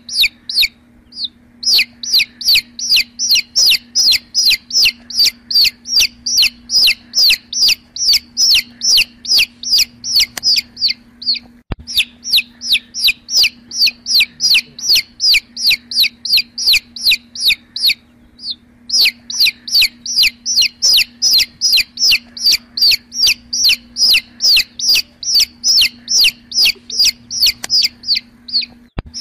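Baby chick peeping loudly and rapidly, a steady run of short downward-sliding peeps about three or four a second, with brief breaks about a second in, around the middle and about two-thirds of the way through. A faint steady hum lies underneath.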